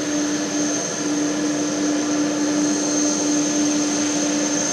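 Jet airliner running on the ground: a steady, unbroken drone with a constant hum and a high whine.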